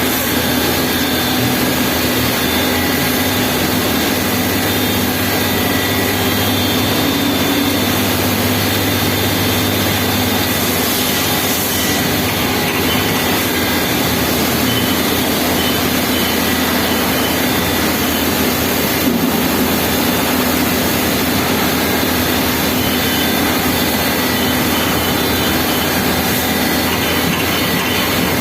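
CNC turning centre (lathe) running steadily while machining Teflon (PTFE) washers. It makes a constant loud machine noise with a low hum and a few faint high whines, and there are no breaks.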